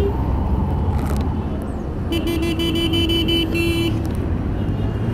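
Steady low rumble of a Hero Hunk single-cylinder motorcycle riding through city traffic. A short horn toot sounds at the start. In the middle a vehicle horn beeps in quick pulses for about two seconds.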